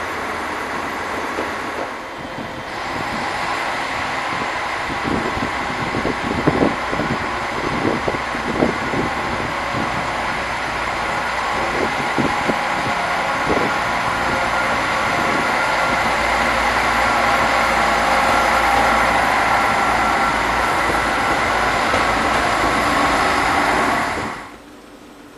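SNCF TER diesel railcar running through the station, its engine noise and rolling sound growing louder over the second half, with irregular clattering knocks from the wheels in the middle. The sound cuts off suddenly near the end.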